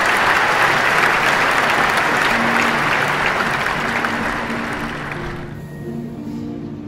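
Large concert audience applauding, the applause dying away in the last second or so. Soft held notes of the opening music come in about two seconds in and carry on underneath.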